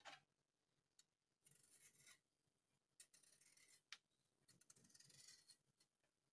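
Faint scraping strokes of a julienne peeler drawn along a raw peeled potato, shaving it into thin shreds. It is a scattered series of short raspy scrapes and light clicks, a second or so apart.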